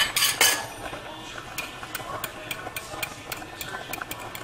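A metal utensil clinking against cookware: a loud clatter at the start, then light, regular ticks about three or four a second, as in stirring or beating.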